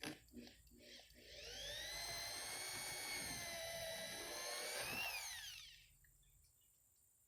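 Corded electric drill boring a hole in a wooden piece, running for about four seconds. Its whine rises briefly near the end, then it winds down and stops. A few light knocks come just before it starts.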